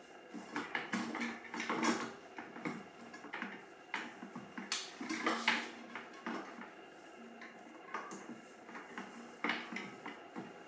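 Irregular metal clinks and rattles of a bicycle front wheel being fitted into the fork, its hub and disc brake rotor knocking against the fork dropouts and brake caliper while being lined up. The loudest clatter comes about five seconds in.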